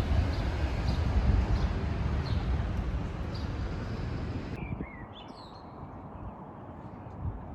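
Outdoor ambience: a steady noisy rush with faint high chirps repeating, then after a sudden cut about four and a half seconds in, a bird chirping a few times over a quieter background.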